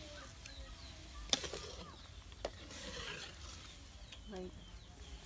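Metal ladle clinking against a wok while soup is ladled: one sharp clink, then a smaller one about a second later, with faint voices in the background.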